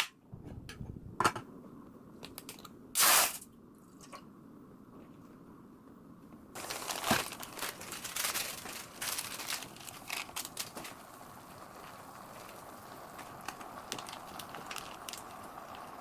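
Crinkling and tearing of an instant-noodle packet, with scattered clicks and a brief loud rush of noise about three seconds in. From about six seconds in, a steady hiss with many small crackles runs on.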